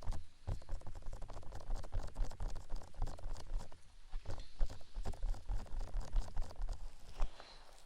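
Close crackling, scratching and rubbing with soft low thumps from hands working directly on a 3D binaural microphone's ears: an ASMR ear massage.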